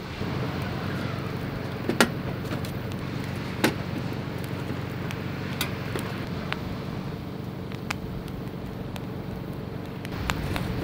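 Wood campfire crackling with scattered sharp pops, the loudest about two and three and a half seconds in, over a steady low hum.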